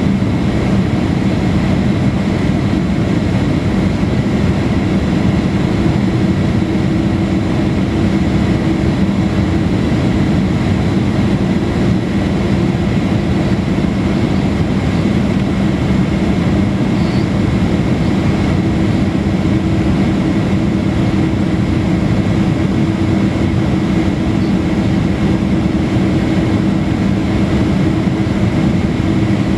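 Steady cabin noise of a Boeing 767-300ER on approach: jet engines and airflow heard through the fuselage from a window seat over the wing, with a few steady humming tones.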